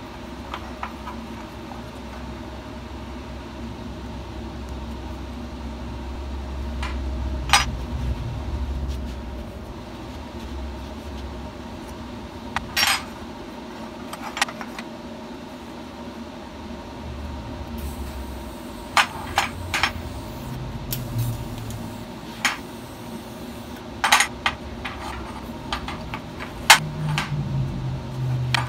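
Cut pieces of stainless square tubing clinking and being set down on a steel welding table: scattered sharp metallic clinks over a steady low hum.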